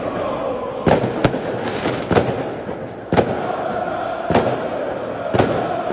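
Fireworks going off in sharp bangs, six of them spaced irregularly about a second apart. Underneath is a steady din of a crowd of football fans chanting.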